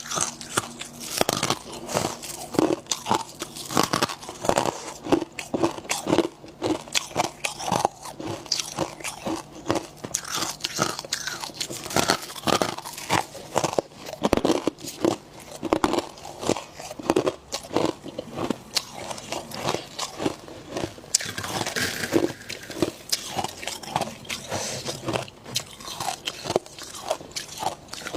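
Close-up chewing of powdery freezer frost and ice: a continuous run of irregular crunches and squeaky bites, several a second.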